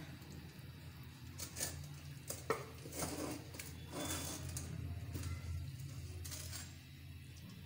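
Serving spoon scraping and clinking against a cooking pot and plate as a potato and mince curry is dished out: a few scattered sharp clinks, mostly in the first four seconds, over a steady low hum.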